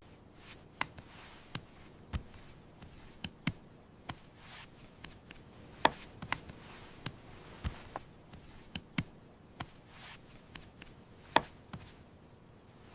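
Light, irregular knocks and taps of kitchen work on a countertop, a tool or utensil set down or striking a board now and then. The loudest knock comes near the end.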